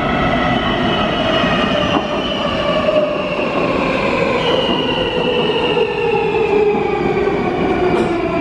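Škoda Varsovia metro train braking into a station: its electric traction drive whines in several tones that fall steadily in pitch as it slows, over a steady rumble of wheels on rail.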